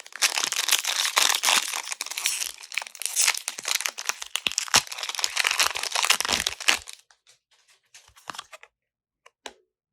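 A foil Pokémon booster pack wrapper crinkling loudly as it is handled and torn open, stopping about seven seconds in; after that only a few faint rustles of handling.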